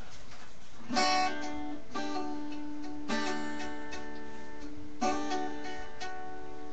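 Acoustic guitar strummed: four chords, each left to ring out.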